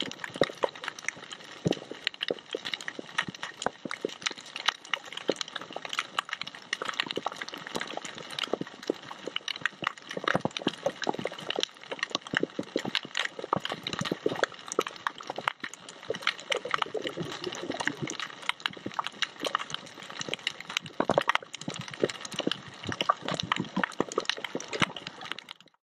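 Coral reef heard underwater: a dense, irregular crackle of snapping shrimp clicks, with a brief wavering low tone about two-thirds of the way through.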